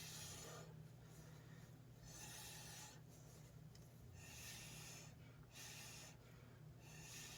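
Faint puffs of breath blown through a straw onto poured acrylic paint to push it out into a bloom, a short hiss of air every second or two.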